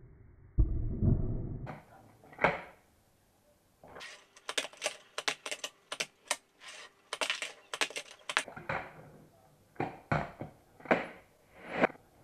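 Handboard wheels and wooden deck on a wooden tabletop: a low rolling rumble in the first couple of seconds, then a fast run of sharp clacks from about four seconds in, and spaced single knocks near the end.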